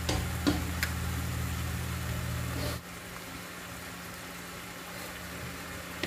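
Pork simmering in its marinade in a frying pan, a steady sizzle and bubbling with a few sharp pops in the first second. Over it runs a low, steady motor-like hum that cuts off suddenly about three seconds in.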